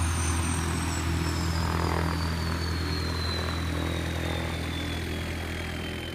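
Beechcraft King Air turboprop engines running on the ground with their propellers turning, giving a steady low drone. Over it a high turbine whine falls steadily in pitch as an engine spools down, and the overall sound slowly fades.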